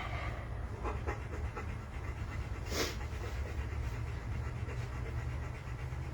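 A dog panting, with a steady low hum underneath.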